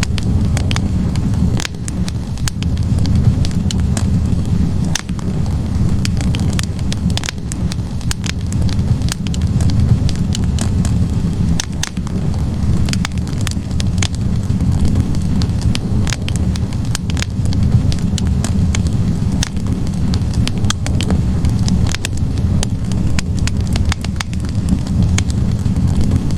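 Wood fire crackling in a fireplace: burning logs give frequent sharp, irregular pops and snaps over a steady low rumble of flame.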